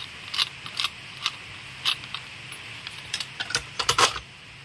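Scattered light clicks and rattles as a chainsaw's clutch cover and chain-tensioner adjuster are handled. Near the end come several quick louder clacks as the cover is set onto the saw over the bar.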